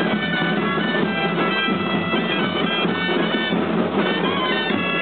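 Several dolçainas, Valencian double-reed shawms, playing a traditional street melody together, the notes stepping up and down, with tabal drums beating underneath.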